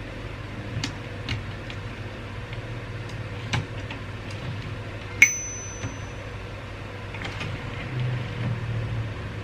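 Royal 202 manual typewriter typing slowly: a few scattered key strikes, then about five seconds in a single ding of the end-of-line bell that rings on for about a second. Near the end comes a low rumbling slide.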